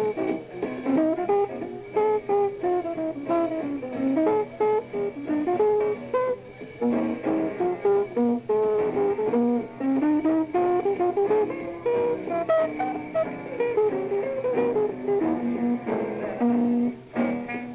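Jazz guitar picking a winding single-note melody that rises and falls, from a 1954 live recording of a guitar, double bass and piano trio.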